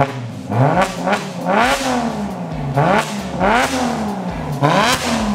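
Porsche Cayman engine revved in repeated quick blips through a homemade welded catback exhaust with new tips, the pitch rising and falling again several times.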